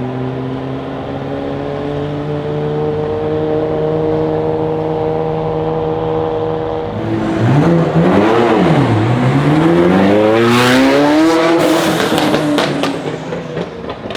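Ferrari supercar engine running at a steady low note that creeps slowly upward, then from about seven seconds in it is revved down and up and pulls hard through a long rising rev, with a rapid run of exhaust pops and crackles near the peak. The engine note falls away and fades near the end as the car moves off.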